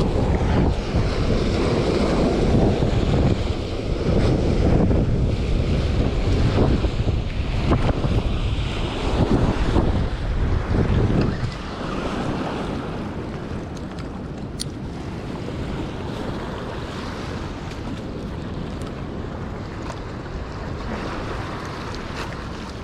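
Wind buffeting the microphone, heavy and gusty at first, then easing to a steadier, quieter rush about halfway through.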